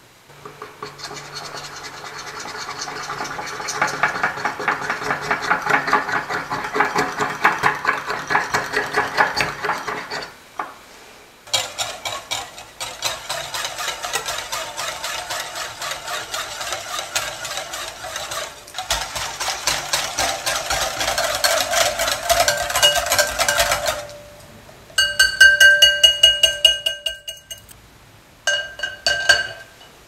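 Wire whisk beating against glass mixing bowls in fast, even strokes: first stirring warmed milk and chocolate until it melts smooth, then, after a short pause, whisking the melted chocolate into beaten egg yolks. Near the end come a few ringing clinks of metal on glass.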